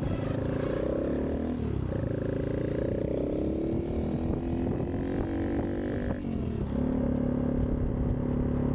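Honda Monkey's single-cylinder engine running under way. The revs dip sharply and pick up again twice, about a second and a half in and about six seconds in.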